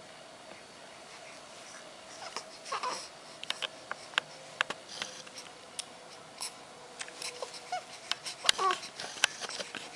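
Baby making a couple of short babbling vocal sounds while playing, amid scattered light clicks and taps, over a faint steady hum.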